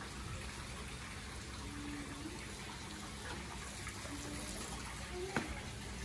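Steady trickle of running water from the stream and fish pond that flow through the restaurant, with a single sharp pop near the end.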